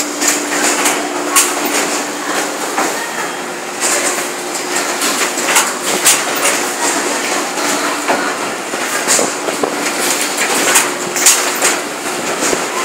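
Machinery of an automatic pad printing line running: a hum that comes and goes under frequent, irregular clacks and knocks.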